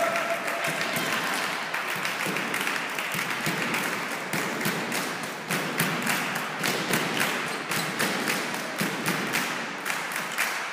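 Irregular sharp taps and claps over a steady murmur of sports-hall noise.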